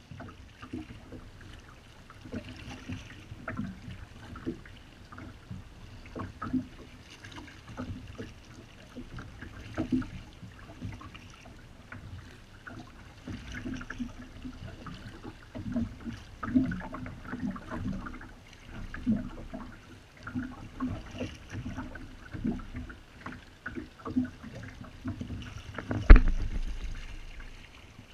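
Kayak paddle strokes: the blades dip and splash and water drips and sloshes around a sit-on-top plastic kayak, in an uneven run of small splashes. A single sharp knock near the end is the loudest sound.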